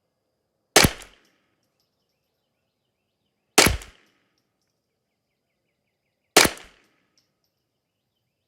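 Kidd semi-automatic .22 LR rifle firing Lapua Master L match ammunition. Four sharp single shots come about three seconds apart, the last right at the end.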